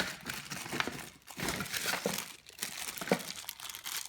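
Speaker packaging crinkling and rustling as it is handled, with scattered small knocks and clicks.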